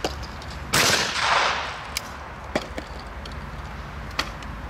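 A loud gunshot about three-quarters of a second in, its blast and echo hanging on for about a second. Three fainter sharp shots follow later.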